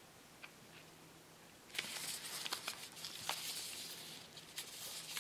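Paper wrapper of a chocolate bar crinkling and snapping as its folded end is worked open. It starts about two seconds in, after a quiet start.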